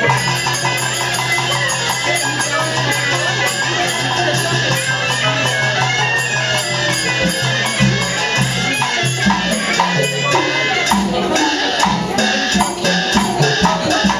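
Traditional Burmese ensemble music with busy, rapid percussion and rattling over steady low drone-like tones.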